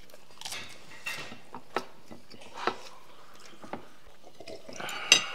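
Sounds of people eating by hand: chewing and mouth smacks with scattered sharp clicks of plates, the loudest about five seconds in.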